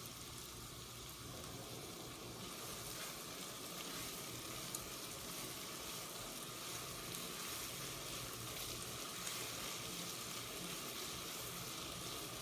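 Chopped onions sizzling steadily in a generous amount of hot oil in a pot, frying at the start of browning.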